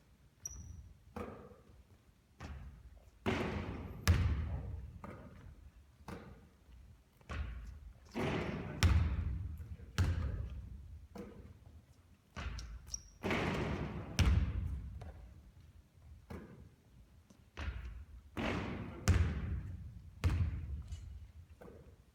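A basketball bouncing and thudding over and over, roughly once a second, each thud echoing briefly.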